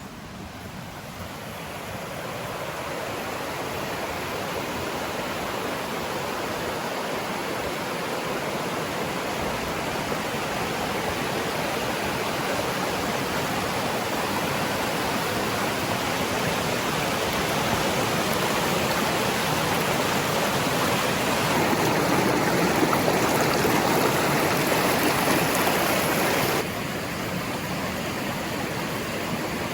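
Forest stream rushing over small cascades, a steady wash of water that grows louder over the first few seconds, is loudest shortly before the end, then drops abruptly a few seconds before the end.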